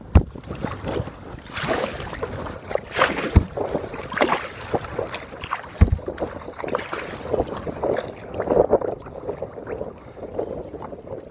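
Kayak paddle strokes splashing and dripping in the water, with three sharp knocks, about a quarter second, three and a half seconds and six seconds in.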